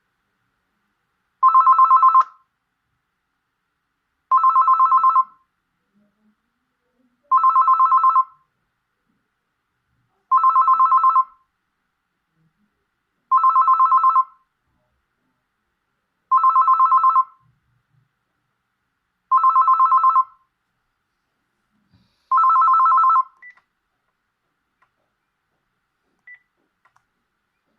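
Panasonic KX-PRS110 DECT cordless phone's alarm sounding: a loud, phone-like electronic trill, a fast warble between two tones in bursts just under a second long, repeated about every three seconds, eight times.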